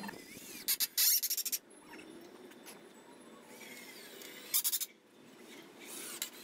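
Cordless drill driving screws into a pine board frame in short bursts of under a second, about a second in and again around four and a half seconds. Birds chirp faintly in between.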